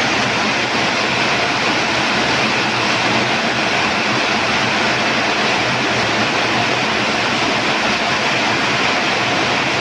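Heavy rain pouring down: a loud, steady hiss with no letup.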